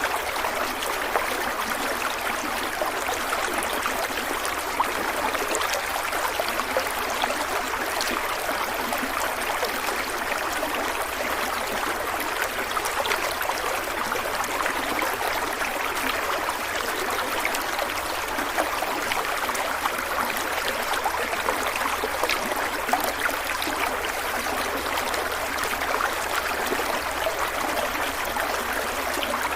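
A small stream of water flowing and splashing over rocks, a steady babble with fine droplet ticks throughout.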